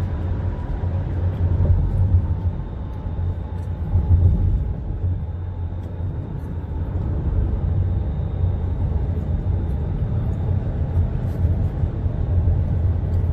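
Steady road and engine rumble of a car driving on a highway, heard from inside the cabin.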